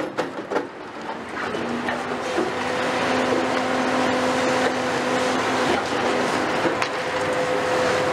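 Caterpillar 390F demolition excavator's C18 diesel engine and hydraulics working under load, building up over the first two seconds or so and then holding steady with a whine, with a few short knocks.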